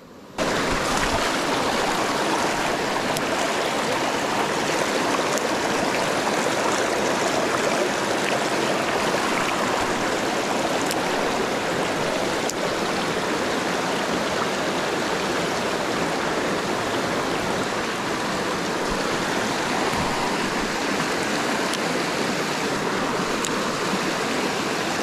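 Mountain creek water running, a steady even rush that starts abruptly just after the beginning.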